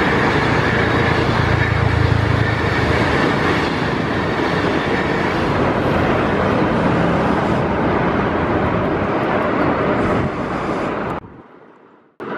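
Chinese passenger train of green coaches running past, a steady rumble of wheels and running noise with a low hum in the first few seconds. The rumble carries on after the last coach has gone, then dies away near the end and drops to near silence just before a cut.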